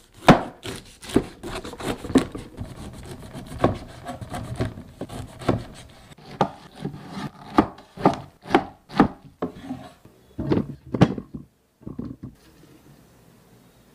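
Steel cleaver chopping the rind off a whole pineapple on a wooden cutting board: a string of sharp chops, one to two a second, with crunching and scraping of the rind between them. It falls quiet near the end.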